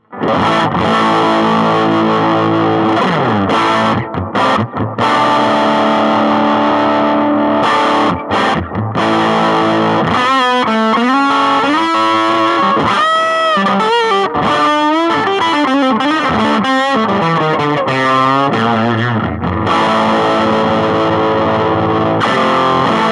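Electric guitar played through a Marshall Origin 5 all-tube 5-watt amp with a fuzz pedal and delay, a huge fuzzy tone. It opens with held, ringing chords, moves to a fast single-note lead with string bends in the middle, and ends on chords again.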